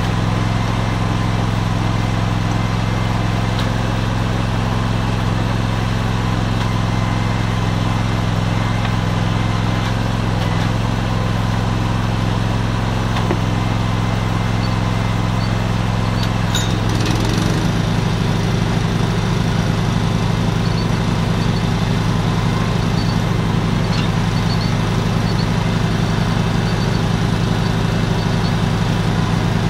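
SB-PM "Kolibri" drilling rig running steadily with a constant engine hum. About halfway through, after a brief click, the running sound changes and takes on a fast fluttering pulse.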